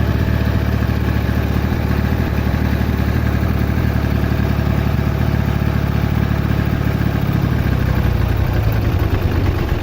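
An engine idling steadily, a low, even running sound like a tractor's.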